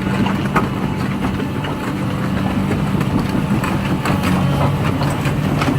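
Excavator's diesel engine running steadily with a low hum, with scattered light knocks and clicks over it.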